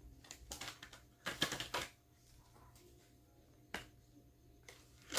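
Paper-and-plastic handling noise from counting cash into budgeting envelopes: soft rustles of banknotes with a few sharp clicks and taps, a busier cluster of rustling about a second and a half in.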